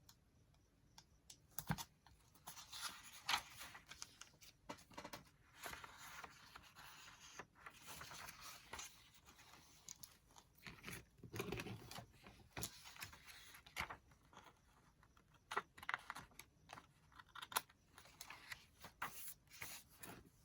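Paper being handled on a work table: irregular rustling and tearing of journal pages, mixed with light clicks and taps.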